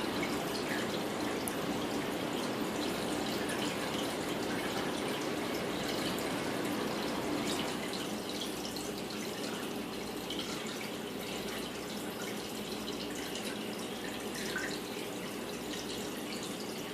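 Steady trickling and splashing of water from a running aquarium, with faint drips.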